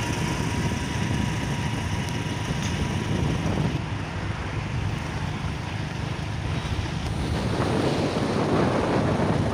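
Wind buffeting the microphone and road noise while riding in an open three-wheeler rickshaw along a highway: a steady rush with a faint high whine in the first few seconds, growing a little louder near the end.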